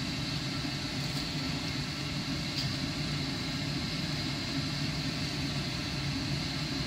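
Steady low hum with an even hiss over it: kitchen background noise beside a gas hob where a pot of beef curry is simmering.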